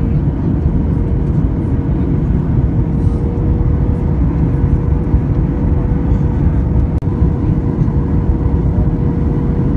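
Steady cabin noise of a Boeing 737 MAX on descent, heard inside the cabin: a deep rumble of airflow and CFM LEAP-1B engines with a steady hum riding on it. The sound cuts out for an instant about seven seconds in.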